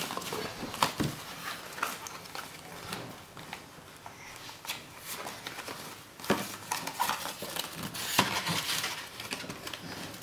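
Handling of a cardboard Play-Doh box and plastic tubs on a table: rustling with scattered clicks and knocks, busier in the second half.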